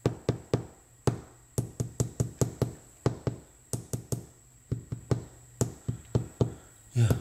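Fingertip or knuckle tapping on a hardwood floorboard, quick knocks in short runs, sounding hollow where the board has delaminated and lifted into a bubble. A louder thump comes near the end.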